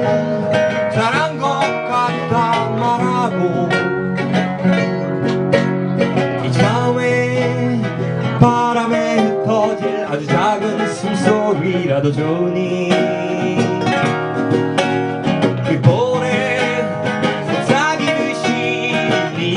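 An acoustic song on plucked guitar, with a voice singing the melody.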